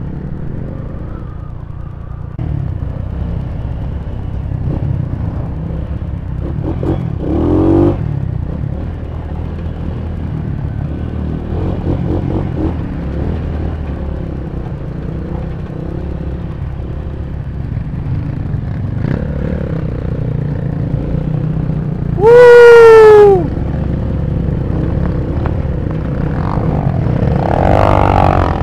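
Honda Tiger motorcycle's single-cylinder four-stroke engine running steadily as the bike rides along, with some clatter over rough ground. Near the end comes one loud, pitched blast lasting about a second.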